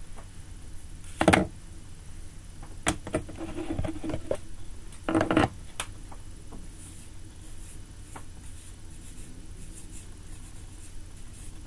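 A few sharp knocks and clicks, the loudest about a second in and about five seconds in, then the faint scratchy strokes of a marker writing on a whiteboard.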